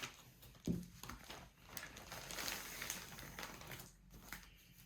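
Faint rustling and crinkling of bubble wrap packaging being handled and pulled away, with a light knock about a second in.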